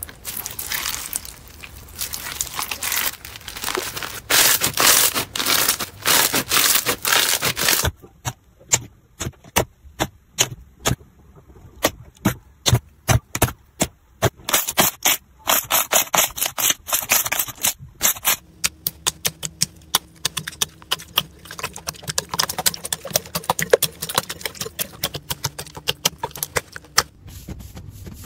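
Hands squeezing and pressing slime. Dense crackling of crunchy bead-filled slime for the first several seconds, then many separate sharp clicks and pops as softer, glossy slime is pressed.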